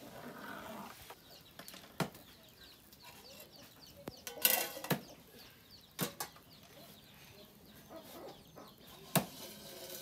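Chickens clucking, with four sharp knocks spread through and a short loud noisy burst a little before halfway.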